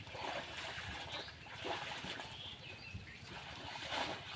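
Pond water sloshing and splashing around a man's legs as he wades through it, rising in surges about once a second with his strides. Birds chirp faintly.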